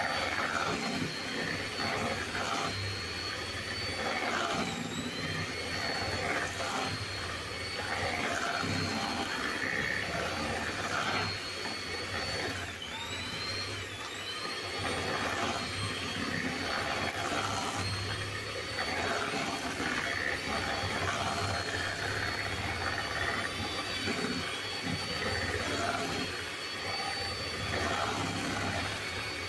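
Electric hand mixer running steadily, its beaters creaming butter and sugar in a stainless steel bowl. It gives a high motor whine that dips briefly in pitch about five seconds in and twice around the middle as the load changes.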